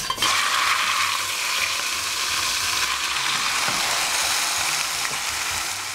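A whole raw chicken set into hot melted butter in a pot, sizzling as it goes in and then frying steadily as it starts to brown.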